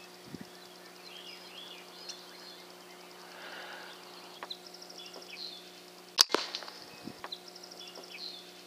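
A single sharp crack about six seconds in: a shot from an FX Impact PCP air rifle at a rabbit, followed by a few quick smaller clicks. Birds chirp faintly throughout over a steady low hum.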